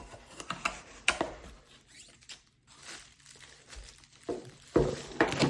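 Packaging being opened by hand: intermittent rustling, tearing and crinkling, with scattered light knocks as parts are handled, the loudest near the end.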